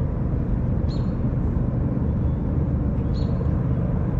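A steady low rumble, with a short high chirp that comes back about every two seconds.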